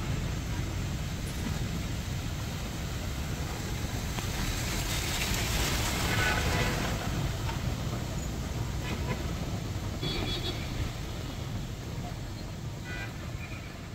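Street traffic in heavy rain on a wet road: a steady low rumble under rain hiss, with a vehicle passing, loudest about six seconds in. The sound fades down near the end.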